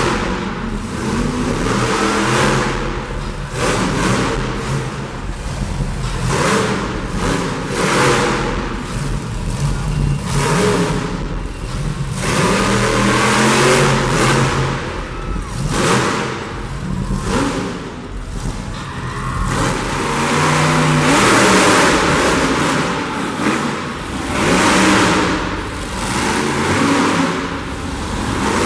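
Monster truck engine revving hard in repeated surges, the throttle opened and shut every one to two seconds as the truck drives and climbs over crushed cars.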